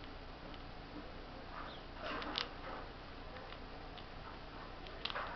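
Eurasian red squirrel gnawing and chewing corn kernels: small crisp clicks of its teeth, with a cluster of louder crunches about two seconds in and more near the end.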